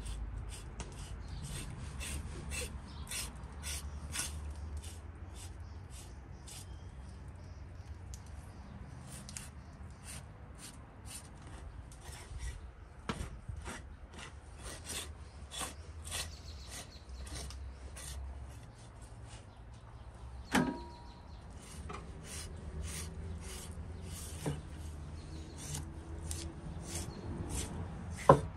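A knife slicing and scraping through fat and membrane on a raw beef leg, making a string of small irregular crackling cuts. About two-thirds of the way through there is a single knock with a short ringing tone, and a sharp click comes near the end.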